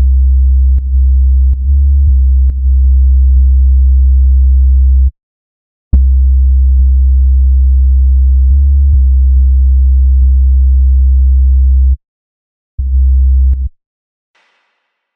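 Dubstep sub bass synth playing long, low sustained notes close to a pure tone, with a small click at each new note and one note stepping briefly higher. It cuts out twice for under a second and stops for good near the end.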